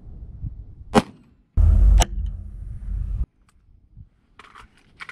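A single AR-15 rifle shot, a sharp crack about a second in. Half a second later a strong gust of wind buffets the microphone with a deep rumble for nearly two seconds, with another sharp crack just after two seconds in.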